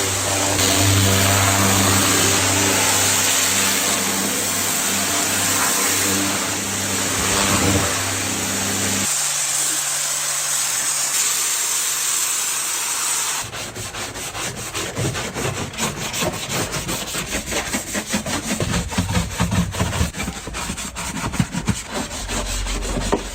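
A pressure washer's motor hums steadily while its spray hisses on a car. About nine seconds in, the hum stops and the spray goes on alone. Then, after about 13 seconds, there is rhythmic scrubbing or rubbing on the car, several quick strokes a second.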